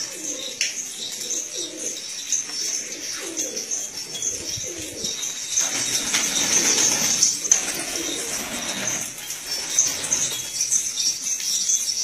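Domestic pigeons cooing in a loft, with a rush of wing flapping from about halfway through that lasts a few seconds.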